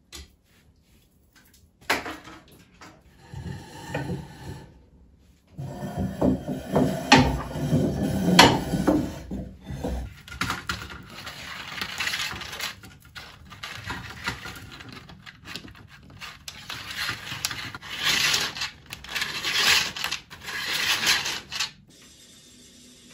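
Household objects being handled by hand: uneven rubbing and rustling with scattered light clicks and knocks, busiest about a third of the way in and again near the end, stopping shortly before the end.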